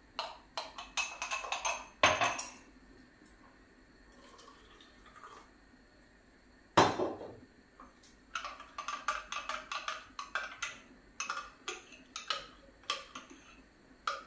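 Metal spoon clinking quickly against a glass jar as powdered coconut milk is stirred into water, in two spells, with two louder single knocks about two and seven seconds in.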